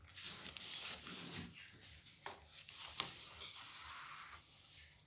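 Cardstock being handled and pressed together: faint rustling and scraping of paper, with a couple of sharp taps about two and three seconds in.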